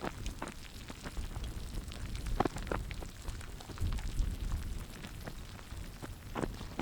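Wind buffeting the microphone as a low rumble, with a few scattered sharp cracks or crunches, two of them close together about two and a half seconds in and another near the end.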